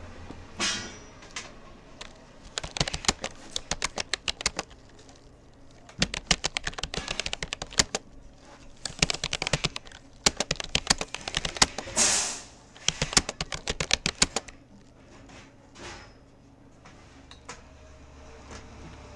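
Rapoo computer keyboard being typed on in quick runs of keystrokes with short pauses between them, and one louder rushing clack about twelve seconds in. Near the end the typing thins out to a few scattered keystrokes.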